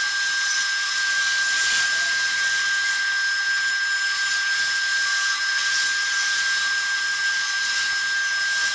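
High-speed train running at speed: a steady hiss with a single high-pitched whine held throughout.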